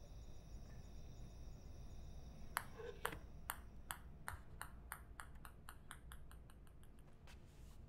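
A small hard object dropped and bouncing to rest on the floor: sharp clicks start about two and a half seconds in and come ever faster and fainter until they die out.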